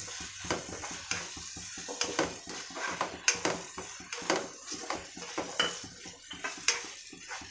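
Spatula stirring vegetables sautéing in ghee in a deep kadai: repeated irregular scrapes and knocks against the pan, over a light sizzle.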